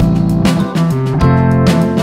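Instrumental background music with guitar.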